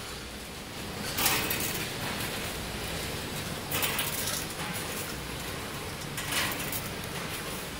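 Pink-capped plastic hospital parts clattering in a stainless steel pot as a hand rummages among them, three short bursts about two and a half seconds apart, over a steady low hum.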